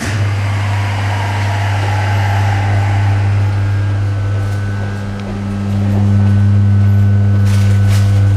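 Lift drive motor switching on and running with a loud, steady electrical hum. The hum grows louder about halfway through, with a few clicks near the end.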